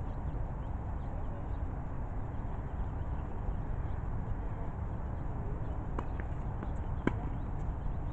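Two sharp knocks of a tennis ball being hit and bouncing on a hard court, about a second apart in the second half, the second louder, over a steady low rumble.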